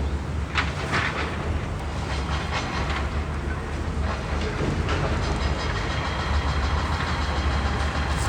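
A steady low rumble with a few light clicks and taps over it.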